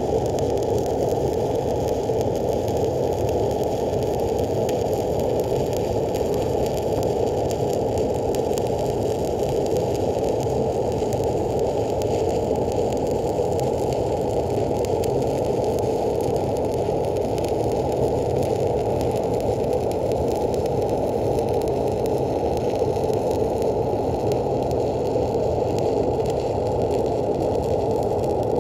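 Stick (SMAW) welding arc burning steadily as the electrode runs an overhead fill-pass bead: a continuous, dull crackling hiss with no breaks.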